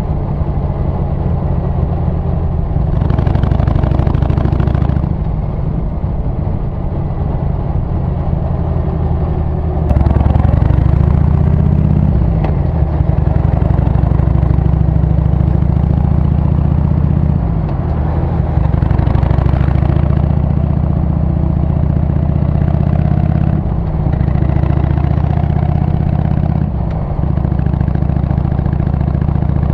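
Harley-Davidson Sportster 883's air-cooled V-twin running as the bike is ridden, its exhaust note heard from the rider's seat. The engine note gets louder about ten seconds in and dips briefly a few times later on.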